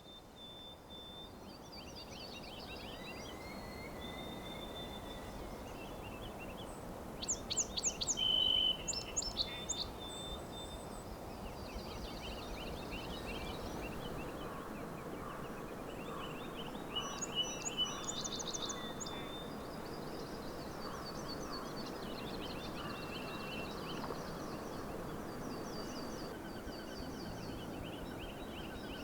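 Several songbirds singing at once, with trills and chirps overlapping over a steady low rush of background noise. The loudest song, a quick series of sharp notes, comes twice, about a quarter and about three fifths of the way in.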